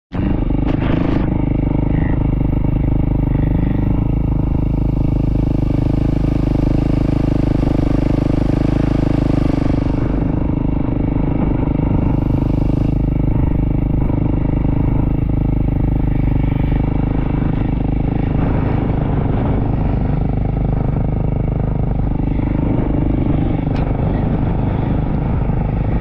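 Yamaha YZ450F dirt bike's single-cylinder four-stroke engine running at a fairly steady pitch while being ridden through sand, with wind noise on the microphone.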